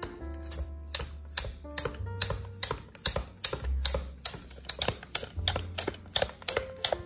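Raw peeled potatoes being sliced on a plastic mandoline slicer: a quick, even run of sharp scraping strokes, about three to four a second. Background music with bass notes and held tones plays underneath.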